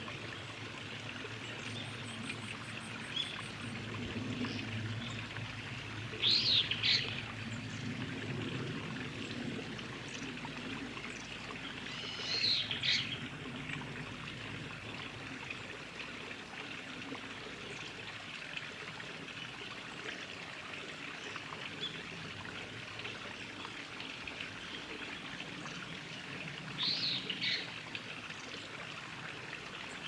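Steady trickle and hiss of running water, broken three times by short bursts of high, rapid bird calls, about six, twelve and twenty-seven seconds in.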